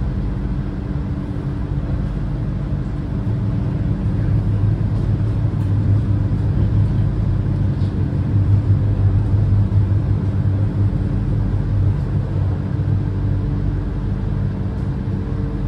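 Alicante Tram running, a steady low hum and rumble that grows louder about three seconds in and eases again after about thirteen seconds.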